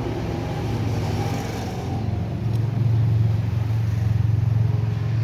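A motor running steadily with a low hum, louder in the second half, then cutting off suddenly at the end.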